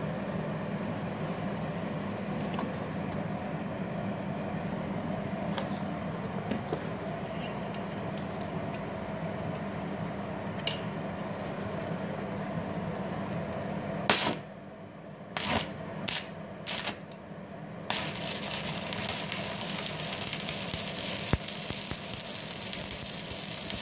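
Stick welding with a MultiPro VRD MMA 400 A-MZ IGBT inverter welder set at about 155 amps, using a 4 mm LB-52U electrode. A steady machine hum runs for the first fourteen seconds. A sharp click and a few short crackles follow as the electrode is struck. From about eighteen seconds the arc burns with a steady sizzling crackle.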